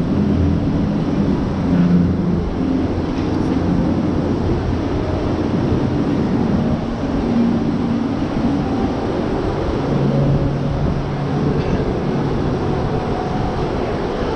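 Roller coaster train rolling slowly through its station, a steady low rumble from the track with a faint hum that shifts pitch about ten seconds in.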